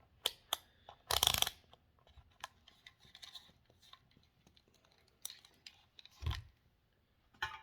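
Tools and parts being handled on a workbench: scattered clicks and taps, a short rustling scrape about a second in, and a low thump about six seconds in.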